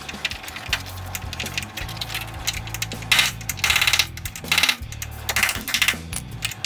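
MIG welder crackling in several short bursts as it lays quarter-inch stitch welds on a new sheet-steel floor pan, with background music playing underneath.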